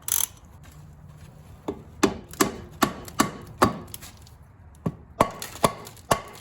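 Sharp metal knocks, about ten of them in two runs at roughly two to three a second, as a tool taps at a stuck differential cover to break its seal loose.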